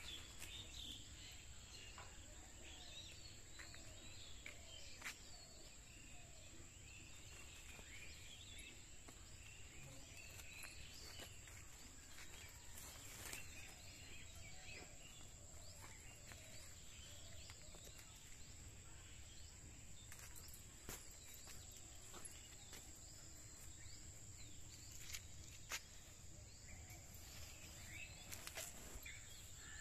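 Faint ambience of scattered bird chirps over a steady high insect drone, with a few faint clicks.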